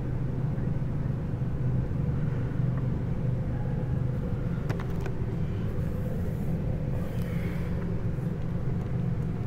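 Steady low rumble of a freight train, with a few faint clicks about five seconds in.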